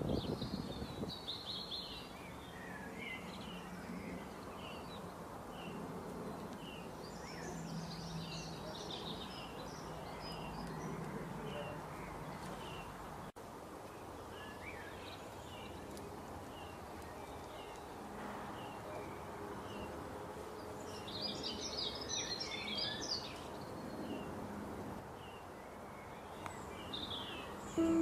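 Small songbirds chirping in quick, repeated short notes over a steady outdoor background hiss.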